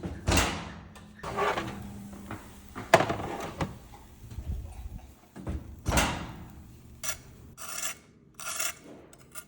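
Food being scraped or rasped in a series of strokes, about one every second and a half, then quicker, shorter strokes near the end.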